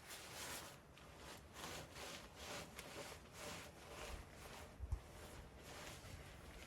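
Faint rhythmic scraping strokes, about two a second, with a single low thump about five seconds in.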